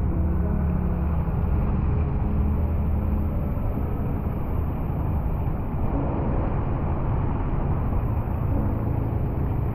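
Car engine and road noise as a steady, muffled low rumble, picked up by a camera mounted on the car's bonnet.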